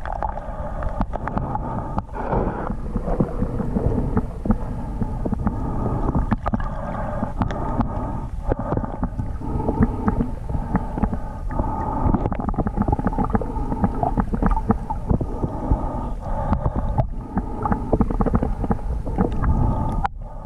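Underwater sound picked up by a camera held beneath the surface: a steady muffled rumble of moving water, with many small clicks and crackles throughout.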